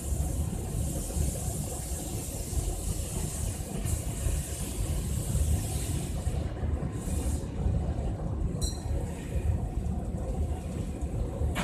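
Biomass pellet burner firing: a steady low rumble of flame and blower with a hiss over it, and a brief high-pitched squeal about three quarters of the way through.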